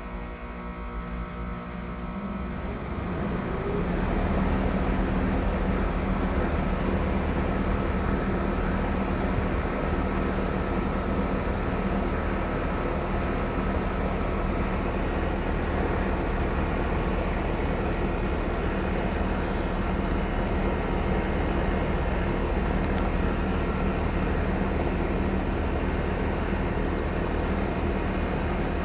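Central air conditioner's outdoor condensing unit kicking on after its compressor delay. The compressor and condenser fan come up over the first few seconds, then run with a steady low hum and fan noise.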